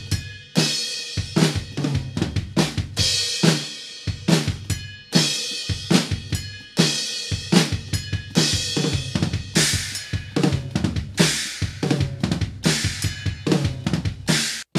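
Drum kit played in a steady beat, with kick drum, snare and cymbal hits and the cymbals ringing between strokes. This is a sound test of a homemade bell cymbal cut from a saw blade. The playing breaks off sharply near the end.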